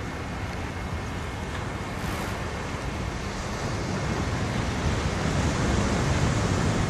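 Ocean surf breaking: a continuous rush of waves that swells louder over the last few seconds.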